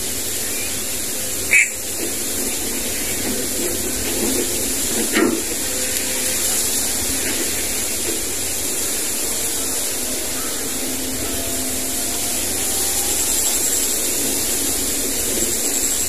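Steady hissing outdoor background noise, with a single sharp click about one and a half seconds in and a smaller knock about five seconds in.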